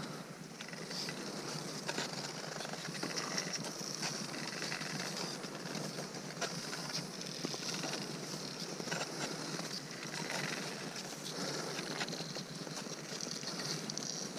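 Footsteps crunching and trekking poles tapping on snow during a night ascent, many short sharp clicks over a steady hiss.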